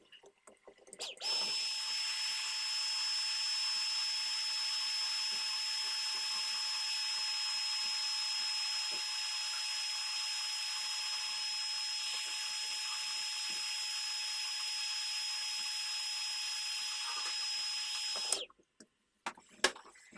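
A small electric power tool's motor switches on about a second in and runs at one unchanging pitch, with a steady high whine over a hiss, for about seventeen seconds, then cuts off suddenly.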